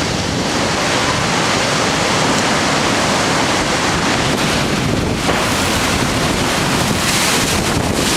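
Strong storm wind blowing hard and buffeting the microphone in a constant loud rush, the hiss growing brighter about five seconds in.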